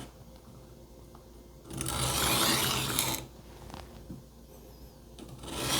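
Steel kitchen knife blade stroked across a Worksharp Benchstone's diamond-coated sharpening plate, making a grinding hiss. There are two long strokes: one about two seconds in and another starting near the end.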